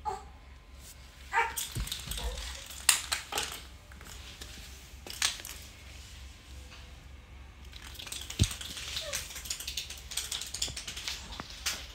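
A cat at play with a small ball on a tile floor: scattered clicks and knocks of the ball and paws, with a heavier thump about eight seconds in. A few brief mews come near the start and again about nine seconds in.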